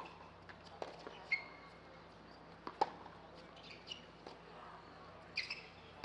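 A tennis ball bouncing on a hard court, a few separate knocks with the loudest about three seconds in, and several short high-pitched squeaks in between.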